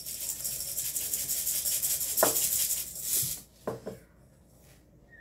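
Cookie sprinkles shaken out of a small cup onto an iced cookie: a steady, hissy rattle lasting about three and a half seconds, with a light knock partway through and two small knocks just after it stops.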